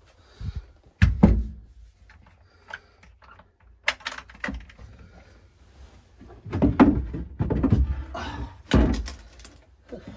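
Wooden cabin floorboards and steps being lifted out and set down. There are two heavy knocks about a second in, a few lighter clicks, then a longer run of bumps and scraping near the end.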